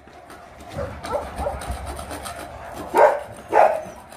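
A dog barking, with a few quieter barks and then two loud barks about three seconds in, half a second apart.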